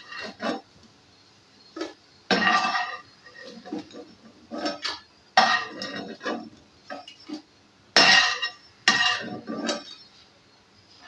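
Metal utensil clinking and scraping against a frying pan as fried bread pieces are lifted out, with several louder clanks spread through.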